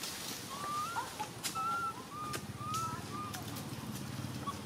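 A run of short, thin whistled animal calls, one every half second or so, each rising slightly in pitch. Scattered light taps and rustles come between them.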